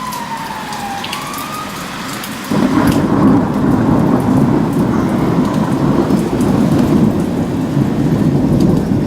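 Thunder after a nearby lightning flash: a deep rumble starts suddenly about two and a half seconds in and rolls on steadily over the hiss of heavy rain. In the first second or two, the wail of a passing emergency vehicle's siren falls and then rises briefly.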